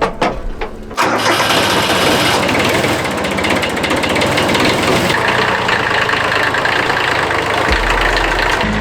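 A vehicle engine cranks briefly, catches about a second in, and then runs loudly and steadily.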